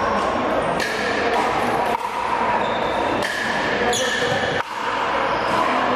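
Pickleball rally: paddles striking the hard plastic ball, several sharp pops about a second apart, ringing in a gymnasium.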